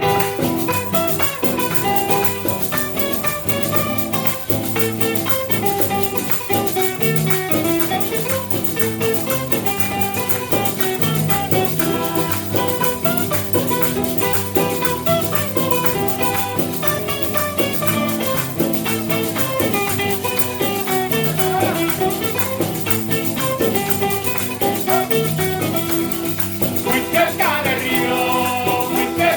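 Latin American band music: plucked strings with a rattle, steady and loud throughout, and a voice starting to sing near the end.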